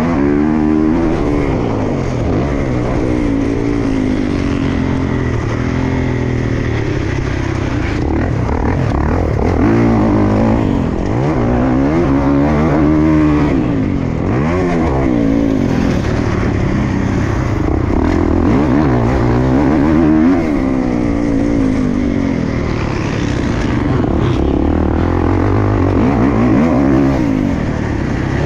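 Motocross dirt bike engine revving hard and dropping back over and over, its pitch rising and falling every two or three seconds as the throttle is opened and closed.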